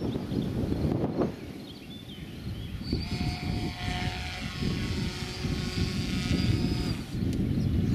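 Small propeller motor of a radio-controlled paraglider, running with a steady whine from about three seconds in until about seven seconds in. Gusty wind buffets the microphone throughout.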